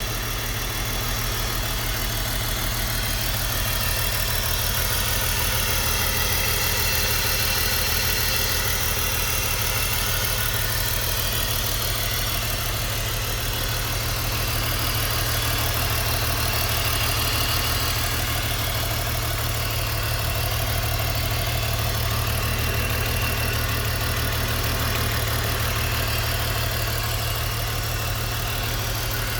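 BMW E46 engine idling rough, steady for the whole stretch with a low pulsing beat. This is the sign of a misfire on cylinder 3, logged as fault code P1347.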